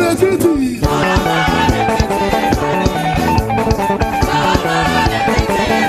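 Upbeat praise band music with electric guitar and drums keeping a steady beat.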